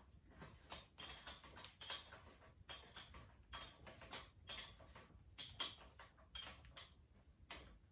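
Faint, irregular metallic clicks and light knocks of hand work on a motorcycle's front wheel and brake caliper as the parts are fitted, several small taps a second with no steady rhythm.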